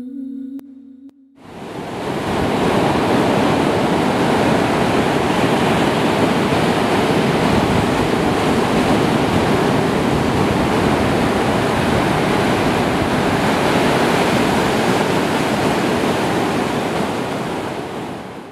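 Loud, steady rush of ocean surf mixed with wind buffeting the microphone, starting about a second and a half in and fading out near the end.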